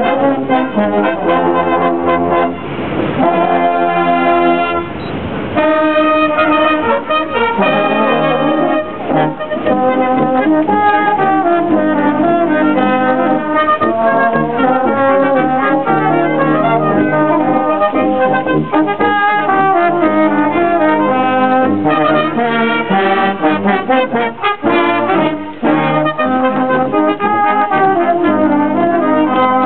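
A brass ensemble playing a piece in several parts, with held chords and moving lines and no break.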